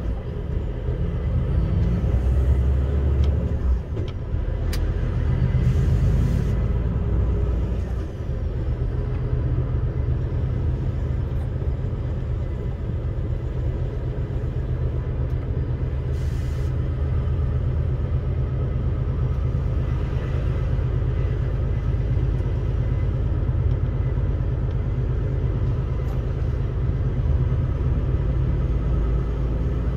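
Vehicle engine running while driving, a steady low rumble. The engine note shifts unevenly in the first eight seconds, then settles to an even drone.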